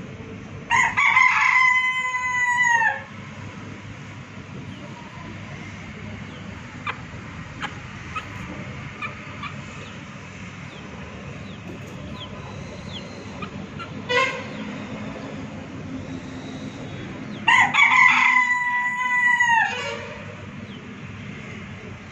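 A rooster crowing twice, each crow about two seconds long, held steady and then dropping off at the end; the second crow comes about sixteen seconds after the first. A few faint short chicken calls fall in between.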